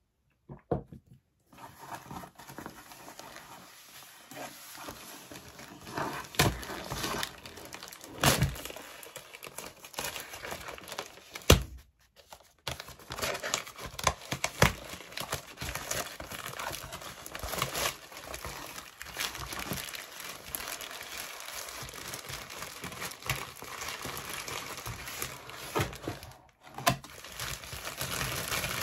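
A plastic postal mailer bag being torn open and crumpled by hand: continuous crinkling and tearing of the plastic, with a few sharp knocks and brief pauses.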